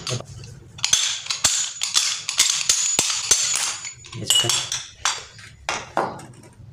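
Repeated sharp metal knocks at uneven spacing as a monoblock water-pump motor's rotor shaft is struck end-down against the pump casing to knock a small ball bearing off it without a puller. The bearing is being removed because it is noisy and faulty.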